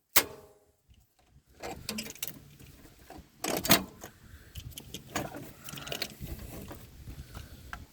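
Clicks, knocks and rattles of hand work on a truck engine's air intake: metal clips being released and intake parts handled, with a brief metallic ring at the start.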